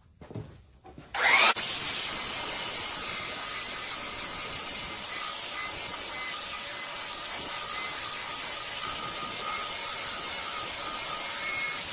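Makita handheld belt sander switched on about a second in, its motor winding up, then running steadily with a high whine as it sands the freshly cut curved edge of a hickory tabletop smooth.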